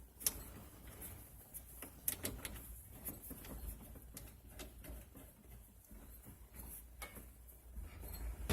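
Faint, scattered metallic clicks and ticks of a hand tool working a faucet supply-line nut under a kitchen sink as it is tightened.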